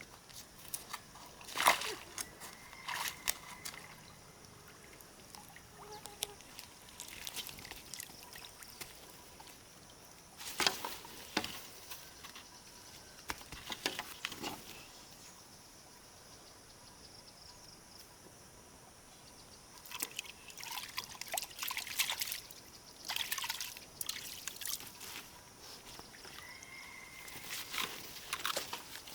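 Water splashing and trickling in short, irregular bouts, with quiet gaps between them.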